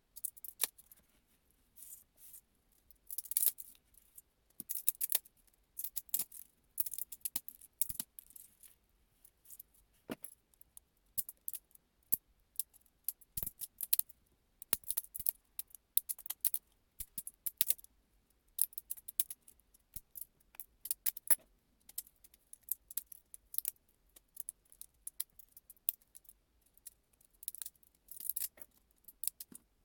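Irregular light clicks and small metallic clinks of hard parts being handled, sometimes in quick clusters.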